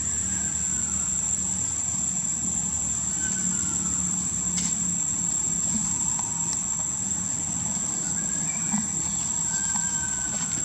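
Steady, unbroken high-pitched insect drone, with a low hum beneath it and a few faint, brief falling chirps scattered through.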